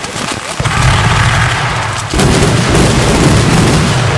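Fireworks going off: two sudden heavy booms, about half a second and two seconds in, each followed by a long low rumble that keeps going.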